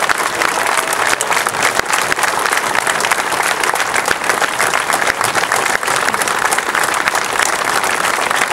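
Crowd applauding steadily, many hands clapping together: the crowd's approval of the manifesto just read aloud.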